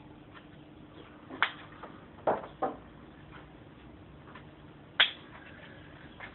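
A few sharp clicks and knocks from hands handling plastic-bottle craft pieces and tools: one after about a second and a half, two close together a second later, and the loudest about five seconds in. A faint steady hum runs beneath them.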